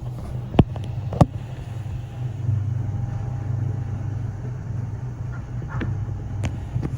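Passenger lift car travelling down, a steady low hum inside the cabin, with a couple of sharp clicks about half a second and a second in and fainter ones near the end.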